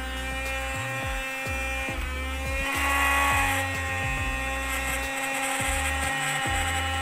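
Small electric air pump running steadily with a high motor whine, blowing air into a vinyl inflatable pool. It grows louder and brighter for about a second, around three seconds in.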